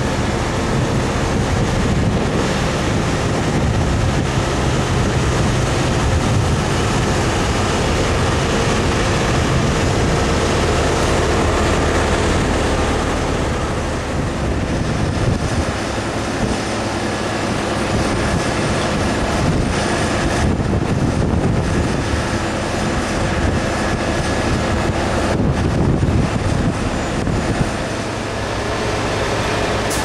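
Diesel paving machinery running steadily: the engine and working noise of an asphalt paver laying hot asphalt, with a low engine hum that shifts about halfway through.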